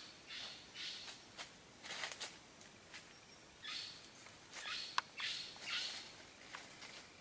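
Rustling and crackling in dry leaf litter and undergrowth: a run of short, irregular rustles with a sharp click about five seconds in.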